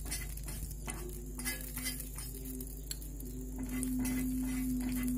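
Pastry brush dabbing and scraping cooking oil around the cavities of a heated metal pukis mould, giving a run of irregular light taps and scrapes over a faint sizzle. A steady low hum comes in a little past halfway.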